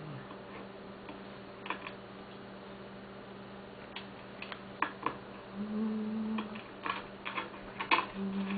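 Irregular light clicks and taps of small metal hand tools and wire being handled, coming in a few quick clusters. A steady low hum lies underneath.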